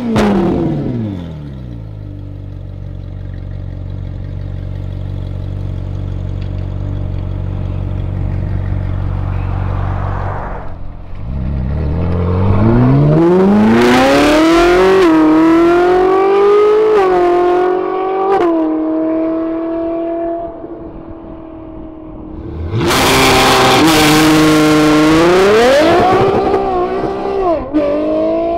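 Ferrari 458's 4.5-litre V8 through a Kline Innovation aftermarket exhaust. The revs fall away at first and the engine drones low and steady for several seconds. About eleven seconds in it accelerates hard, its pitch climbing with quick upshifts, eases off, then climbs hard again near the end.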